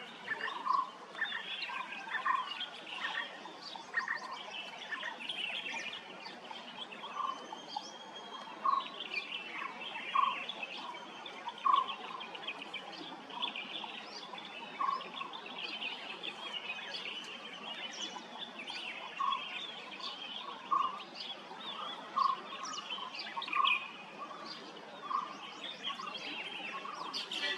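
Several birds chirping and singing together, with one short, mid-pitched note repeated every second or two.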